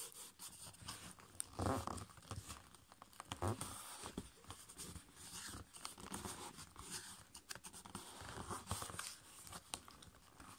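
Sheet of copy paper being folded and creased by fingers against a tabletop: irregular rustling and scraping of the paper, loudest about a second and a half in and again at about three and a half seconds.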